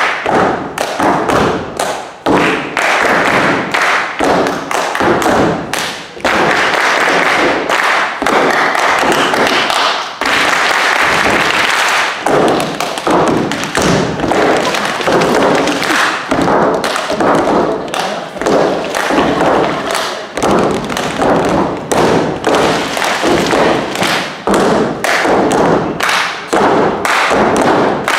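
Body percussion: a fast, dense run of hand slaps on thighs and chest, foot stomps and claps.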